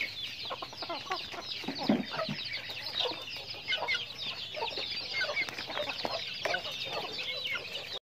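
A flock of chickens calling together: a dense, continuous chorus of high, short peeps, with lower clucks from the hens scattered through it.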